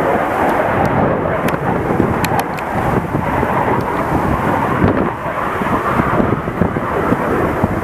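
F-16 fighter jet's single turbofan engine during a display pass: loud, rough, continuous jet noise with a few sharp crackles.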